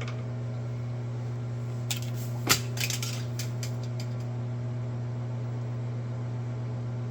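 A few light metal clinks and clicks as metal tools or machine parts are handled, the loudest about two and a half seconds in, over a steady low hum.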